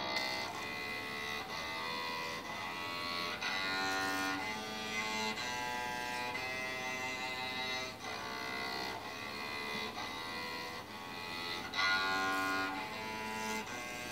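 Electric cello bowed by a beginner, playing a string of separate notes, each held under a second, with a slightly louder note about twelve seconds in.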